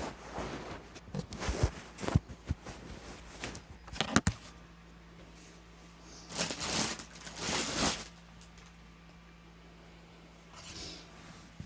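Clicks, knocks and rustling of objects being handled, with two longer rustles from about six to eight seconds, over a steady low hum.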